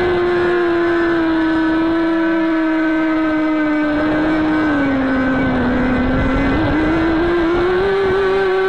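Walkera Runner 250 quadcopter's four brushless motors and propellers whining in flight, heard close up from the onboard camera. The pitch sags slowly, dips lowest about five to six seconds in, then rises back as the throttle comes up again.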